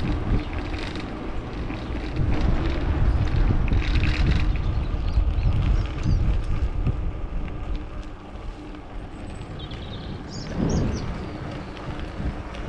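Wind buffeting the microphone on a moving bicycle, over a steady low rumble of tyres rolling on a country lane. A few short high chirps come near the end.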